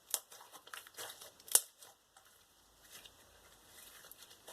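Freshly activated clear glue slime being squished and stretched by hand, its trapped air bubbles giving scattered wet clicks and pops, the sharpest about a second and a half in.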